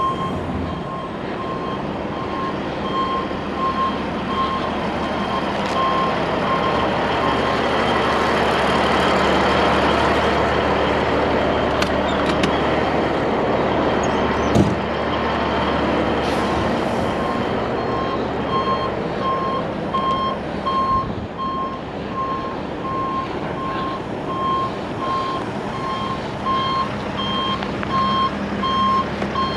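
Forklift backing up, its reversing alarm giving a steady series of short, evenly spaced beeps over the running engine; the beeping stops for a while midway and starts again in the second half.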